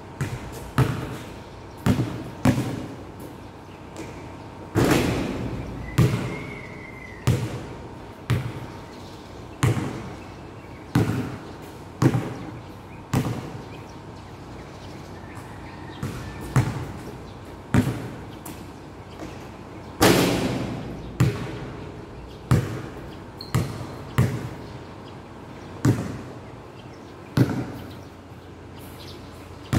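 Basketball bouncing on a hard court under a metal roof, single sharp impacts at an uneven pace of roughly one a second, each with an echo. Two louder, longer-ringing impacts stand out, about five seconds in and about twenty seconds in.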